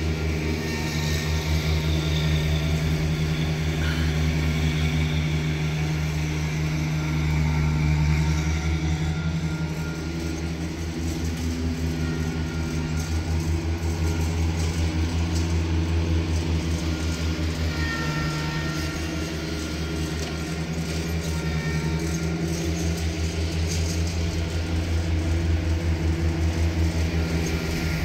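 A motor vehicle's engine running steadily, a continuous low hum with traffic noise around it.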